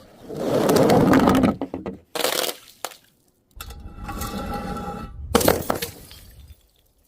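Glass being crushed and breaking: a long crunching stretch, then a short crack, then a crunch with a ringing tone through it, and a last sharp break about five and a half seconds in.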